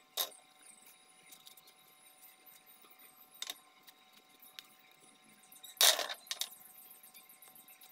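Short clicks and knocks of scale parts and tools being handled on a table: a sharp knock right at the start, another about three and a half seconds in, and the loudest clatter about six seconds in, followed by a lighter knock.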